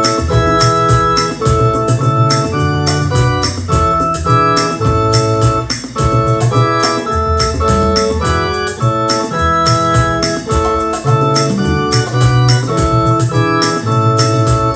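A hymn played in full chords on an electronic keyboard set to an organ-like voice. The chords are held without fading over a moving bass line, with a steady rhythmic pulse.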